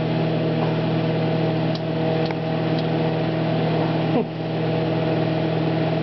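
Sanyo Super Showerwave microwave oven running with a steady hum, eggs heating inside. A few faint ticks come about two seconds in, and a short falling whine a little past four seconds.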